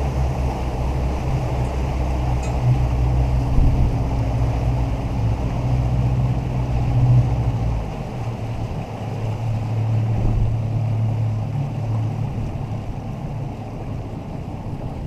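Charter boat's engine running under way, with water rushing along the hull and wind on the microphone. About eight seconds in, the deepest part of the engine hum drops away as the boat throttles back and slows.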